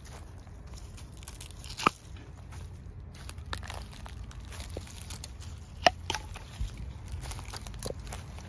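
Young Japanese knotweed shoots snapped off by hand: two sharp, crisp snaps about four seconds apart, with rustling of dry stalks and a few smaller crunches between.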